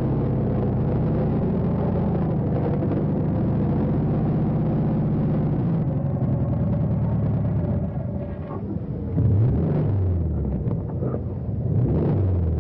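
Car engine running steadily, then revved up and down twice in the last few seconds.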